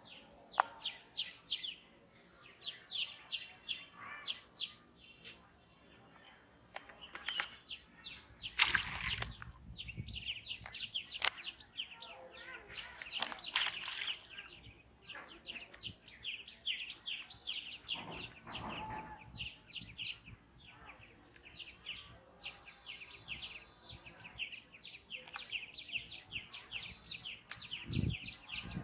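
Small birds chirping in rapid, repeated short calls, with two brief noisy rushes about a third and halfway through.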